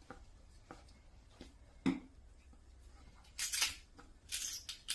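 Handling noises as a body-worn phone holder is fitted and adjusted. A few light clicks and a knock about two seconds in are followed, from the second half on, by three short, hissy scraping or rustling sounds.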